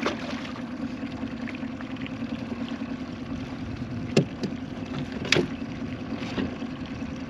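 Boat motor running steadily at trolling speed, a low pulsing hum, with two sharp knocks about four and five seconds in.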